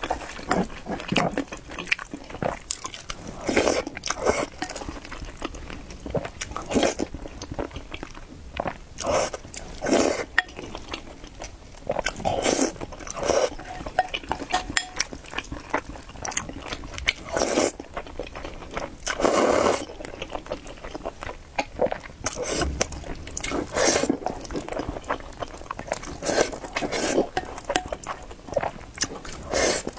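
Eating sounds: noodles slurped in short bursts, with chewing in between and a wooden spoon scraping and tapping a ceramic bowl.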